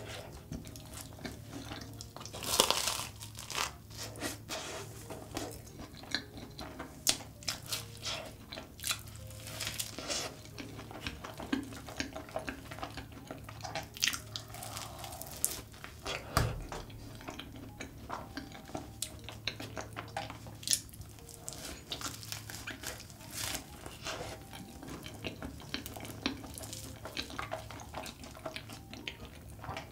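Close-miked eating of a large chocolate-covered choux cream puff: the crisp shell crunches and crackles on the bites, with soft wet chewing of the custard filling and melted Nutella and many small mouth clicks. The loudest bite comes about two and a half seconds in, and there is one dull thump about sixteen seconds in.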